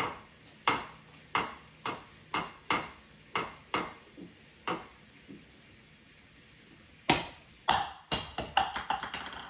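A series of sharp taps or knocks, about two a second, which stop for about two seconds; then louder taps and a quick run of them near the end.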